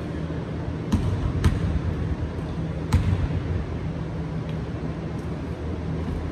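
A basketball bouncing on a hardwood gym floor: three sharp, echoing bounces about a second in, half a second later, and about three seconds in, over a steady low hum.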